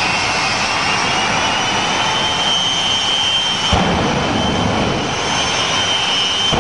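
Jet engine of a jet-powered truck running, a loud rush with a steady high whine; a sudden thump a little past halfway, followed by a deeper rumble for about a second.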